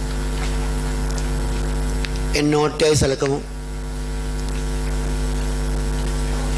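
Steady electrical mains hum with several overtones, running throughout, with a short burst of a voice about two and a half seconds in.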